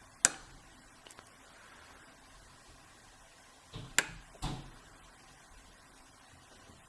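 Sharp metallic clicks of lock-picking tools working an old brass padlock: one loud click, two faint ticks about a second later, then a group of three clicks a little past the middle.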